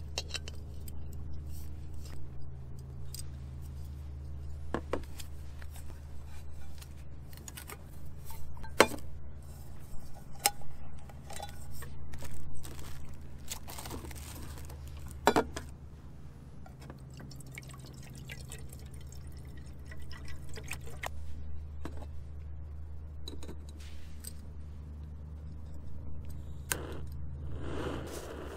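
Scattered clicks and light clatter of a small gas canister camping stove and cook pot being handled and assembled on a folding table, over a steady low hum.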